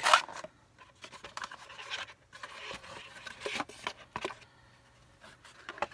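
Stiff cardboard packaging being handled as the glasses are worked out of their insert: scraping and rustling with small clicks, the loudest a short sharp scrape right at the start.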